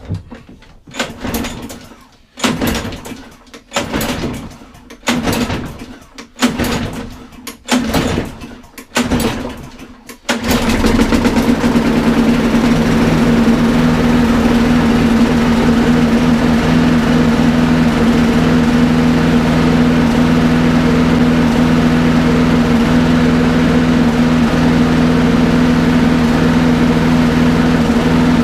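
Petrol lawnmower engine being pull-started on its recoil starter: a run of pulls about a second apart, each with a brief firing, until it catches about ten seconds in and runs on steadily at a fixed speed. It runs with a slight miss, which the owner puts down to an old spark plug.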